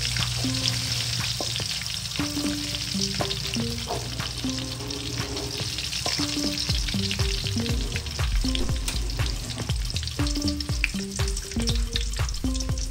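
Battered chicken pieces deep-frying in hot oil in a steel wok, sizzling steadily, with frequent small clinks and scrapes of a wire spider strainer against the wok as the pieces are scooped up. A soft background melody plays underneath.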